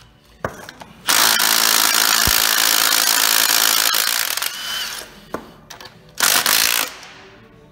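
Milwaukee cordless power tool running in two bursts on the engine's bolts: a long run of about three and a half seconds, then a short one of well under a second near the end, as a cylinder head comes off to check for a burnt valve.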